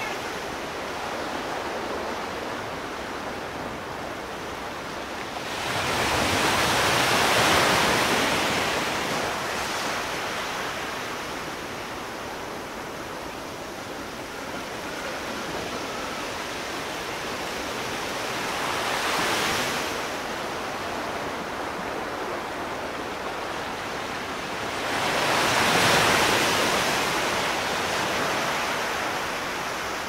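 Ocean waves: a steady wash of surf that swells louder three times, about six seconds in, near the twenty-second mark and again about twenty-five seconds in.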